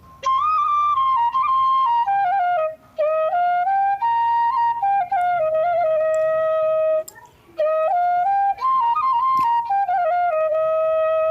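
Flute melody: a single line moving stepwise and holding long notes, played in phrases with short breath pauses between them.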